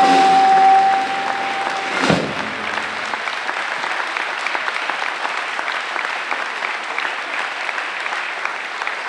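A singer holds a long final note over the jazz trio's closing chord, cut off about two seconds in by a final drum-kit hit; then an audience applauds steadily.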